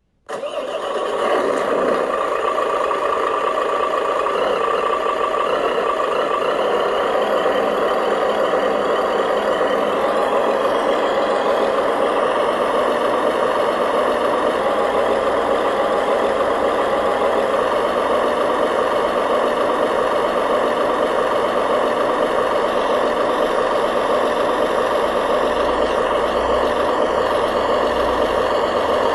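Remote-control model truck running steadily: a continuous motor-and-gear drone that comes in right after a brief gap at the start.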